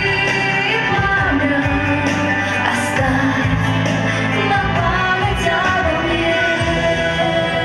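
A song: a voice singing a melody over steady instrumental accompaniment.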